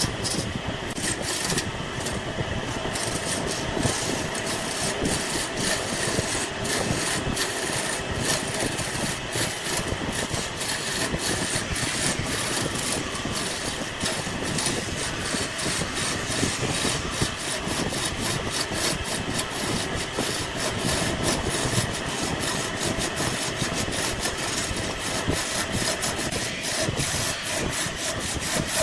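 Woodworking lathe running steadily, with a turning tool scraping and cutting the spinning wood.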